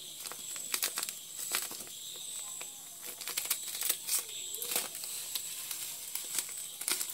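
Small plastic packet crinkling and crackling in the hand as it is shaken out and emptied into a bowl of dry grains, with irregular sharp crackles throughout.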